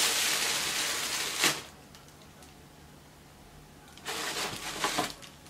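Tissue paper rustling and crinkling as a gift is unwrapped, ending in a sharper crackle about a second and a half in; after a quiet pause the paper rustles again about four seconds in.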